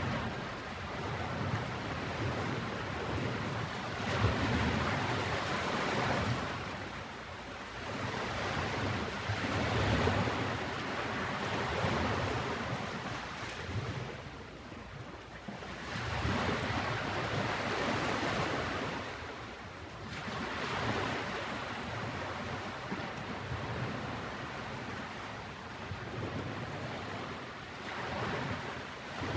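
Ocean waves breaking and washing up on a beach, the surf swelling and ebbing every few seconds.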